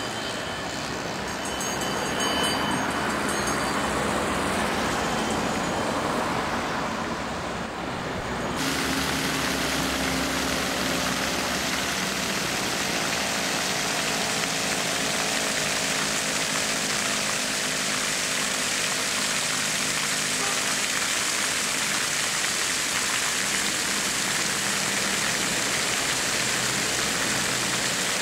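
Street traffic, with cars driving past. About eight seconds in, a cut brings the steady splashing of fountain jets.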